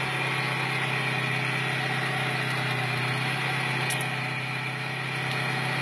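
A car engine idling with a steady low hum, and a single sharp click about four seconds in.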